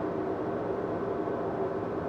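Basement ambience: a steady low rumble and hum with a faint hiss above it, unchanging throughout.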